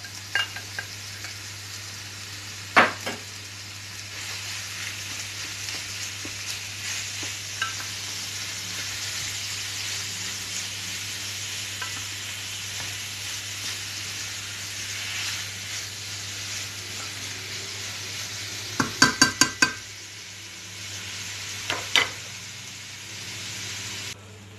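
Minced meat and onion sizzling steadily as they fry in a stainless-steel pan, stirred with a wooden spoon. A sharp knock a few seconds in, then near the end a quick run of about five knocks and one more, as the spoon strikes the pan.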